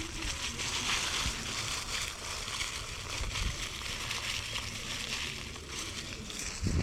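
Electric scooter tyres rolling over dry fallen leaves and dead grass, a steady crunching rustle.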